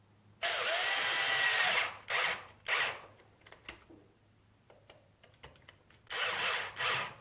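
Cordless power screwdriver driving M3x16 flathead screws into an RC truck's bumper mounting block. It makes a run of about a second and a half, then two short pulses as the screw seats, a few light clicks, and another run of about a second near the end.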